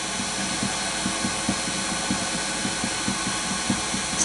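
Wood lathe running steadily with no tool cutting, spinning a small workpiece, with a faint light tick about three times a second.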